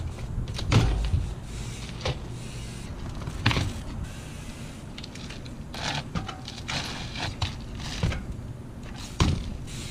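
Mountain bike being ridden through a trials trick: about six sharp knocks and thumps of tyres and frame hitting and landing, spaced a second or two apart, over a steady rolling noise.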